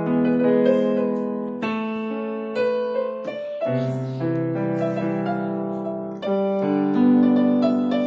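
Slow piano music: sustained chords with a melody above them, the notes changing about once a second.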